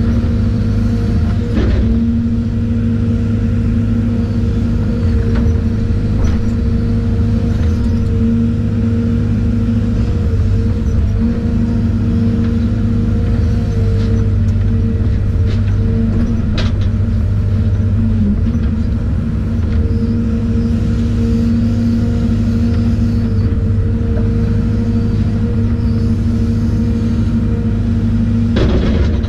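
Case CX210C crawler excavator's diesel engine and hydraulics running steadily under working load, heard from inside the cab: a loud, even hum that swells slightly at moments. A few faint knocks come through as the bucket digs.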